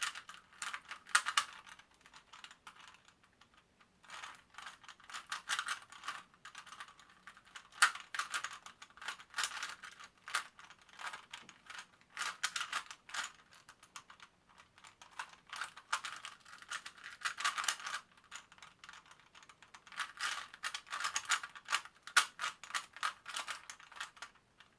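A Rubik's brand 3x3 cube being turned fast in a speed solve: bursts of rapid plastic clicks as the layers turn, broken by short pauses between sequences of moves.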